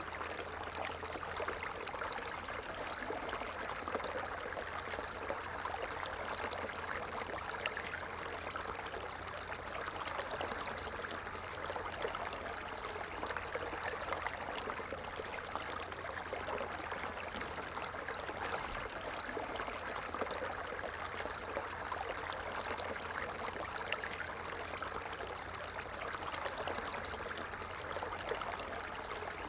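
A flowing stream running steadily, an even rush of water.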